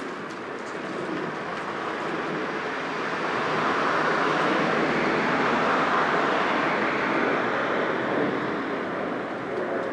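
A passing vehicle: an even rushing noise that swells slowly to a peak around the middle and then fades.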